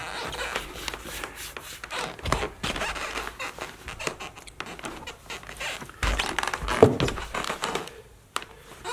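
Cloth rustling and rubbing as trouser legs are pulled down over leather Chelsea boots, with irregular shuffling and a few dull thumps of the boots on a rug-covered floor.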